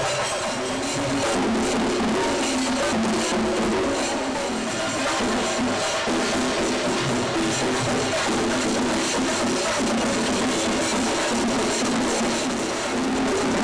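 Music driven by dense, rapid drumming at a steady, loud level.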